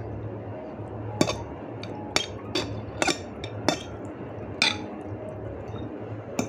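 A metal fork clinking against a plate about seven times as it stirs and lifts noodles: short, sharp taps with a brief ring. A steady low hum runs underneath.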